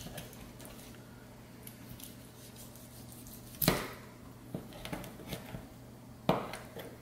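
Knife cutting through a raw chicken leg at the drumstick–thigh joint: two sharp knocks, about two and a half seconds apart, as the blade comes down onto the thin cutting mat. A few softer taps fall between them.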